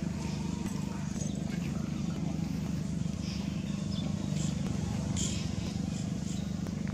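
A steady low engine hum, with short high chirps scattered over it.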